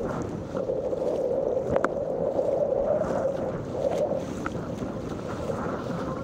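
Sea water rushing and slapping against the bow of a moving surfski, with paddle splashes and wind buffeting the microphone.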